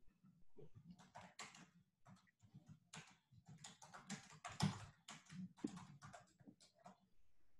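Faint typing on a computer keyboard: irregular runs of keystrokes, a few a second, starting about a second in and stopping near the end.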